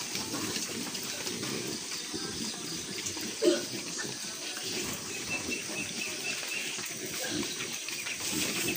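Piglets feeding from a trough: a steady wet slurping and chomping. One short louder grunt stands out about three and a half seconds in.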